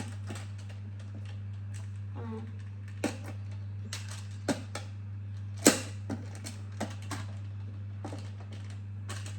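Plastic magnetic building tiles clicking and knocking together as they are handled and snapped into place: irregular sharp clicks, the loudest a little past halfway, over a steady low hum.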